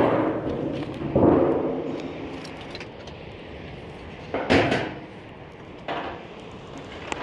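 Several loud knocks and clatters from gear being handled and set down: two close together at the start, then two more around the middle. Each trails off with a short ring.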